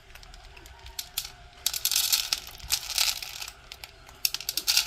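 Crinkling and rattling of cat food being served into bowls, in irregular bursts that come thickest in the middle and again near the end.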